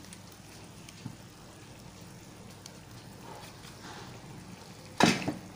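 A steel spoon knocks sharply once against a kadai near the end, with a smaller knock just after, as thick onion-tomato purée is spooned into the pan. Before the knocks there is only a faint steady background.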